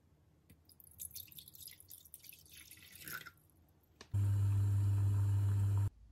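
Water poured from a glass measuring jug into a saucepan, splashing for about two seconds. About a second later a loud low steady buzz sounds for nearly two seconds and cuts off suddenly.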